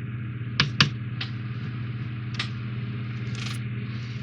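A few small sharp clicks and taps as tiny model-kit screws are picked out and handled, two close together just under a second in, over a steady low electrical hum.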